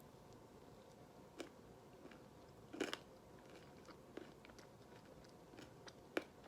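Faint biting and chewing of a peanut butter brittle cookie, with a louder bite about three seconds in and a sharp click near the end.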